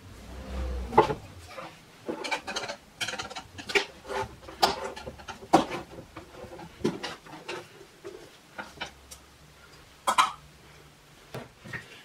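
A metal paint can being handled and its lid prised open: an irregular string of metallic clinks and knocks, sharpest about a second in and again near the end.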